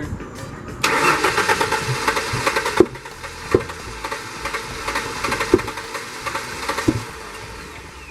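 A 1994–98 Ford Mustang engine cranking on its starter with a heavy dose of ether in the intake for about two seconds, then a few sharp pops over the next four seconds as it fails to catch.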